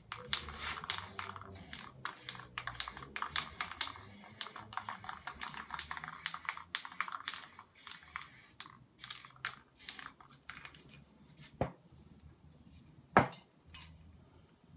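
Aerosol spray paint can hissing in many short, rapid bursts. After about ten seconds the spraying thins out, and two sharp knocks sound near the end, the second the loudest.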